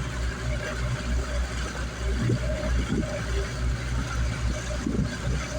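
Boat engine running steadily with a low rumble, under a constant hiss, with brief faint voices now and then.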